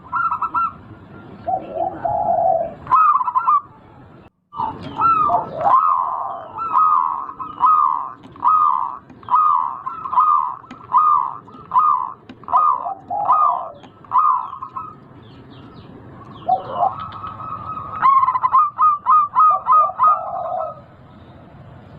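A big-voiced local zebra dove (perkutut) cooing in long strings of rolling notes, with a short dropout about four seconds in and a quicker run of notes near the end.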